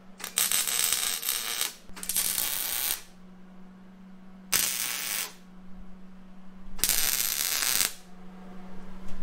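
MIG welder crackling in four short welds of about a second each, tacking a steel caliper bracket and spacer in place, with a steady low hum underneath.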